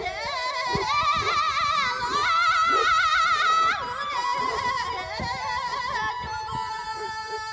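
Background music: a high voice sings long wavering notes over a steady sustained instrumental backing, loudest in the middle and easing off about four seconds in.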